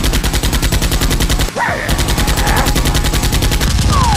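Rapid automatic gunfire, a fast, even stream of shots that breaks off for a moment about one and a half seconds in and then carries on.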